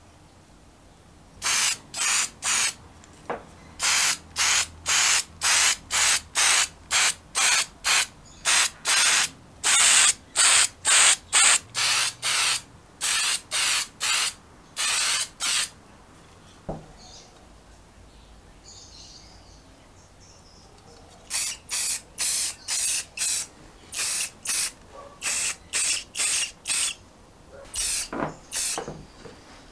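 Aerosol can of engine enamel spray paint hissing in many short bursts, one to two a second, with a pause of a few seconds in the middle before the bursts start again.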